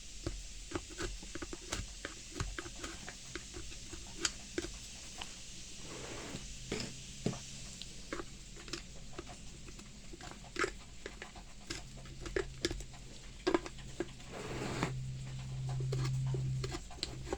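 Screwdriver picking and scraping packed grass out of a lawnmower drive wheel's gear, a run of irregular small clicks and scratches. In the second half a low steady hum comes in and grows louder near the end.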